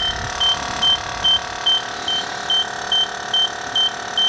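Ford Super Star II tester beeping rapidly and evenly, about two and a half short high beeps a second, over the steady whine of the air suspension compressor filling a strut air bag. The beeping means the car has not yet reached trim height; it turns to a solid tone when it does.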